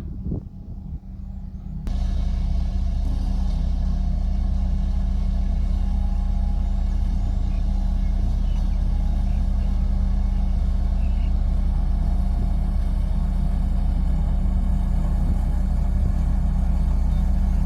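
Heavy diesel engine of a road construction machine running steadily, loud and low-pitched, coming in abruptly about two seconds in after a few knocks over a quieter rumble.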